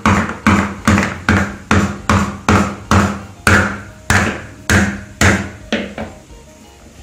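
Wooden rolling pin knocking on a dried half coconut shell on a stone counter, about a dozen sharp knocks at roughly two a second that stop about six seconds in. The knocking loosens the dried coconut kernel from the shell.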